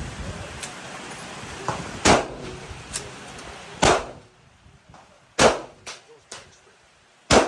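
Gunshots: four loud, sharp shots, each about one and a half to two seconds apart, with fainter shots in between.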